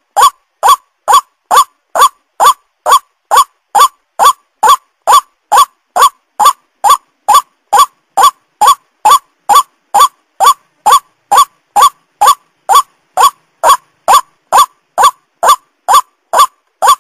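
White-breasted waterhen (ruak-ruak) call repeated in an even loop, about two short calls a second, each dipping slightly in pitch. This is a looped lure recording used to call the bird in.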